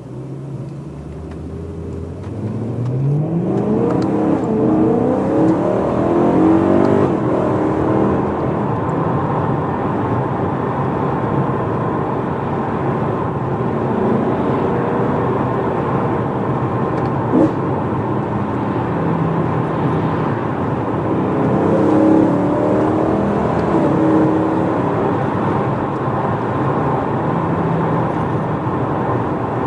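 BMW E92 M3's 4.0 V8 with a decat X-pipe and stock rear box, heard from inside the cabin, pulling hard with its pitch climbing from about a second in. It settles to a steadier run through the middle and climbs again about two-thirds of the way through. There is one sharp click past halfway.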